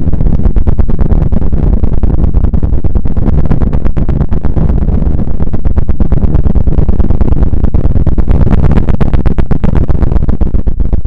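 'Space sound' audio offered as the sound of a planet or moon: a loud, steady deep rumble with dense crackling running through it.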